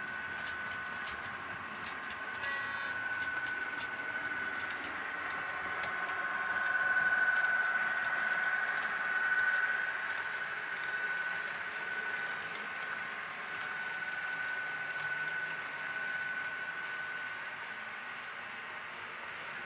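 Model railway train running past: a steady high whine from its motors, with the rush of wheels on the track, getting louder as the train passes about six to ten seconds in. A few light clicks in the first few seconds.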